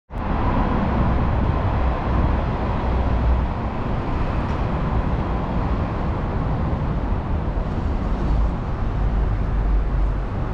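Steady outdoor background noise with a heavy low rumble and no distinct events.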